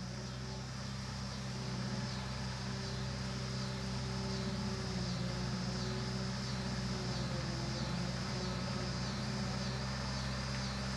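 Kubota tractor's diesel engine running steadily at a distance, swelling a little over the first couple of seconds as it comes closer, then holding. Insects chirp in a high, repeating pattern above it.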